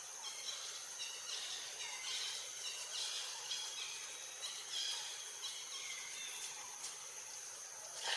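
Tropical forest ambience: a steady high-pitched insect drone, with repeated short falling bird chirps over it and a sharp click right at the end.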